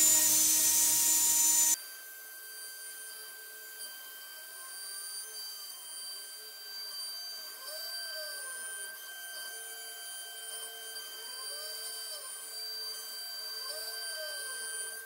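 CNC router spindle and end mill cutting hardwood on a profile pass, loud, cutting off abruptly under two seconds in. After that only faint steady tones remain, with a rising-and-falling tone that recurs about once a second.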